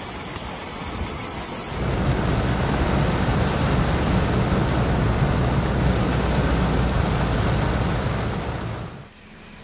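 Heavy rain pouring down, heard from inside a vehicle: a loud, steady hiss of rain with a deep rumble underneath. It grows much louder about two seconds in and falls away near the end.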